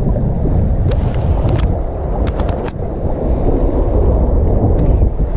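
Strong wind buffeting the microphone, with sea surf beneath it, as a loud, steady low rumble. A few sharp clicks come about a second in and again in a quick cluster around two and a half seconds in.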